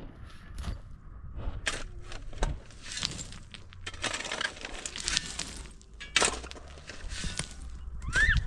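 Irregular cracks, crunches and knocks, with one short high chirp near the end.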